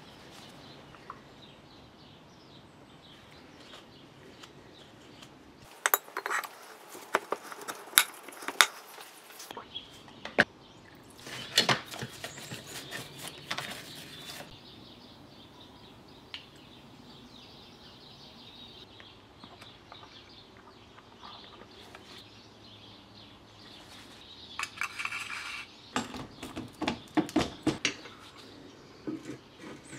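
Small engine parts clinking and tapping as they are handled on a workbench. Near the end comes a quick run of sharp taps as the piston, squeezed in a ring compressor, is tapped down into the cylinder bore.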